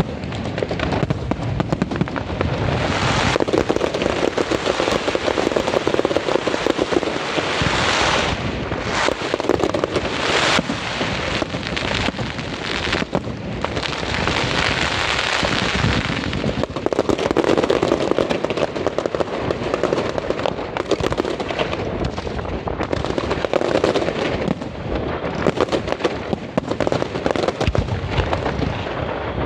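A fireworks display going off without a break: many rapid bangs overlap one another.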